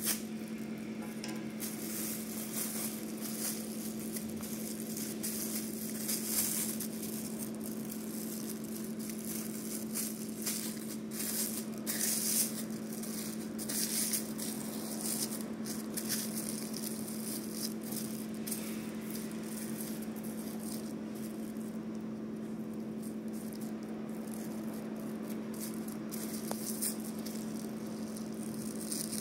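Thin plastic ice-pop bag crinkling and rustling in irregular crackles as fingers press and smooth it flat on a stone countertop, over a steady low background hum.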